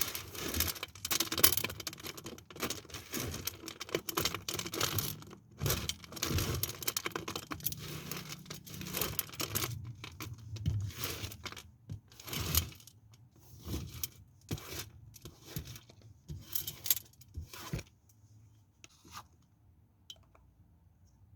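A knife cutting through a bar of soap: a dense run of crunching, scraping strokes with many sharp cracks. It stops about three-quarters of the way through, leaving only a few faint clicks.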